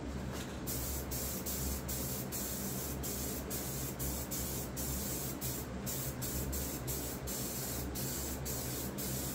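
Aerosol can of clear coat spraying with a steady hiss, starting a little under a second in and broken by many brief pauses between passes.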